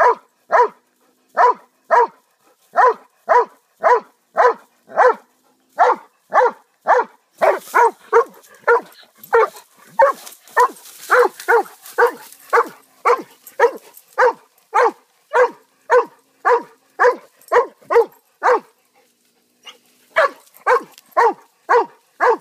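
Dog barking over and over in a steady rhythm, about two barks a second, with a brief pause about three-quarters of the way through.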